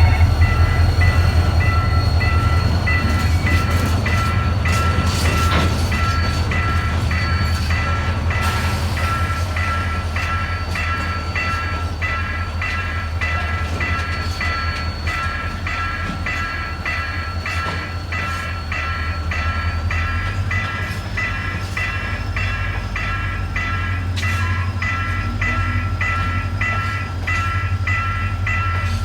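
Level-crossing warning bell ringing in an even, unbroken rhythm over the low rumble of a passing train, which slowly grows fainter.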